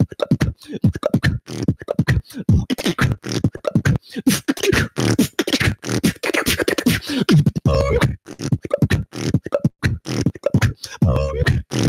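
Solo beatboxing into a handheld microphone: a fast, dense run of mouth-made drum hits and clicks with low falling bass glides. A wavering pitched tone comes in about eight seconds in and again near the end.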